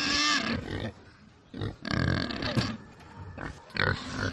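Wild boar calling: three rough, noisy grunting calls, the first at the start lasting about a second, a second about two seconds in, and a shorter one near the end.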